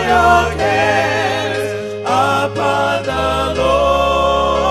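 Gospel music: voices singing with vibrato over sustained bass notes that shift every second or so.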